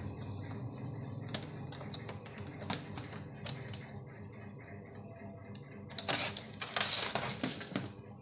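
Plastic clips of a Lenovo IdeaPad 110's bottom case clicking as the cover is pried and unsnapped, with a run of scraping plastic near the end.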